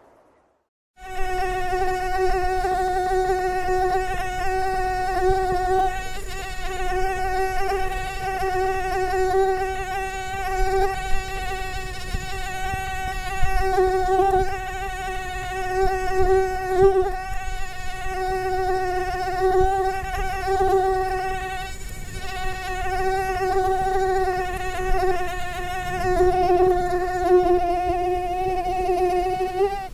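Mosquito whining in flight: a steady, high buzz with many overtones that starts about a second in and swells and fades a little in loudness.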